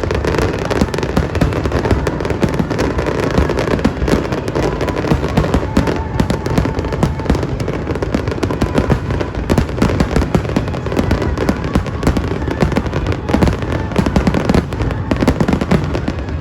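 Fireworks display: a dense, continuous barrage of bangs and crackling pops.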